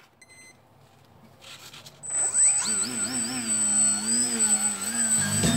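Electric motor and propeller of a foam RC aerobatic plane spooling up about two seconds in, then running with its pitch wavering up and down as the throttle is worked to hold the plane in a hover, a steady high whine over it. Music with a beat comes in near the end.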